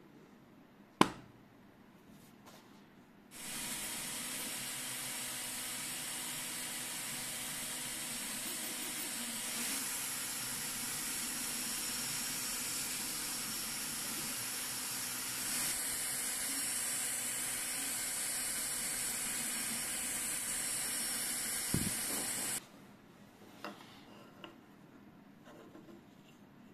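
A 3D printer printing a part, giving a steady, even whir with a few faint steady tones that cuts off suddenly near the end. A single sharp click comes about a second in, and a few faint taps follow the cutoff.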